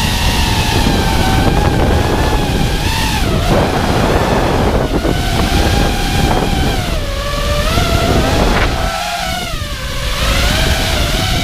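Five-inch FPV quadcopter's motors and propellers whining, the pitch rising and falling with the throttle, with wind rushing over the onboard microphone. The whine dips briefly about three and a half seconds in and again around nine seconds.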